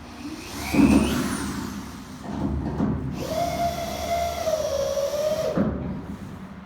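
Power drill running in two bursts: a short spin-up with a rising whine about a second in, then a longer steady whine of a couple of seconds that winds down near the end.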